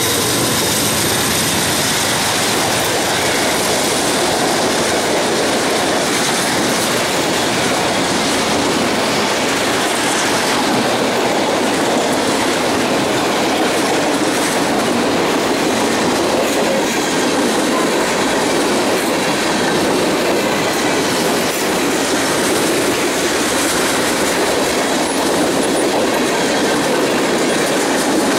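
Freight train cars (autoracks and boxcars) rolling past close by: steady, loud noise of steel wheels running on the rails.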